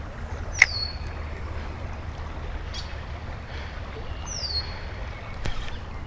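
Steady low rumble of fast-flowing creek water and wind on the microphone, with one sharp click about half a second in. A bird's short high whistle, falling then held, sounds twice.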